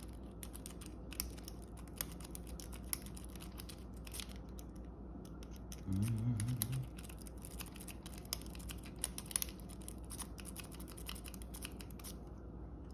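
Lock picks and a tension tool clicking and scratching in the keyway of a Cargo Maxx 4-pin galvanized padlock, in many small irregular clicks, with the rubber weather ring around the keyway hampering the tensioning. A brief low hum from the picker about halfway through.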